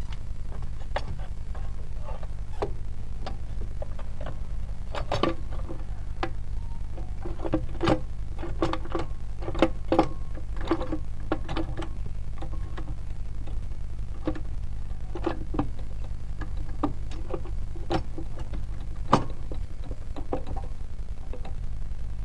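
Irregular metallic clicks and knocks from hand work on a power tiller's gearbox, over a steady low hum.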